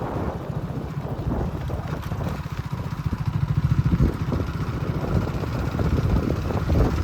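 Wind buffeting the microphone: a loud, irregular low rumble that flutters throughout.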